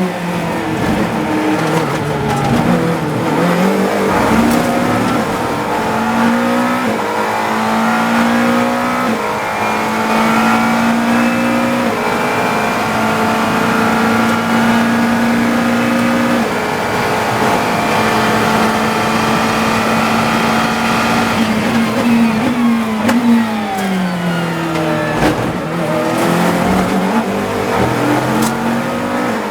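GT3 race car engine heard from the cockpit at full throttle, stepping up through several gears, then braking hard with a quick run of downshifts about three-quarters of the way in before accelerating again.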